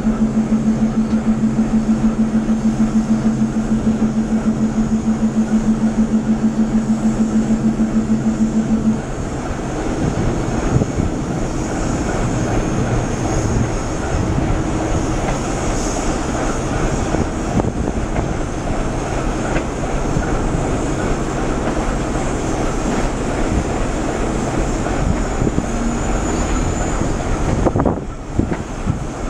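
Double-decker passenger coaches rolling past as the train pulls out of the station. For about the first nine seconds a loud, steady hum with a pulsing beat sounds over the rolling, then cuts off suddenly, leaving the even rumble of the moving coaches.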